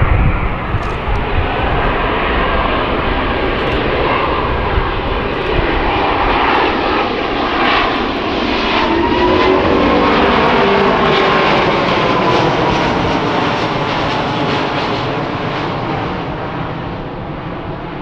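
Airbus A350 XWB's twin Rolls-Royce Trent XWB turbofans heard as the jet passes low overhead: a dense, steady jet roar that swells to its loudest about ten seconds in, with a whine that bends in pitch as the plane goes by, then fades as it moves away.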